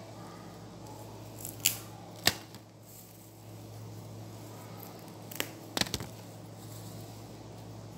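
Fresh mint being sorted by hand: about five sharp snaps and clicks of stems being broken and pulled apart, in two clusters, over a steady low hum.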